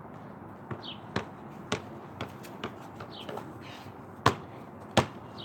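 Basketball bouncing on pavement, dribbled in a run of sharp bounces about two a second, the two loudest bounces coming near the end.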